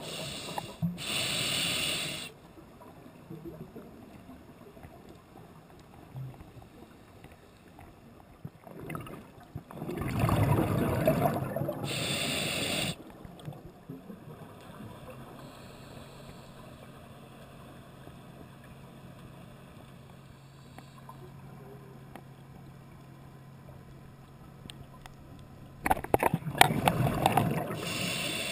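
Scuba regulator exhalations heard underwater: bursts of rushing bubbles just after the start, about ten seconds in, and near the end, with quiet stretches between breaths. A faint steady low hum runs through the quiet middle stretch.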